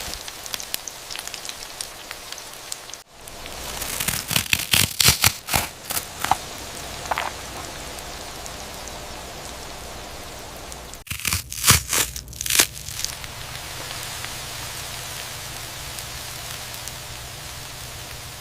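Crispy fried chicken: a steady sizzling hiss broken twice by bursts of loud crunching crackles, about four seconds in and again about eleven seconds in.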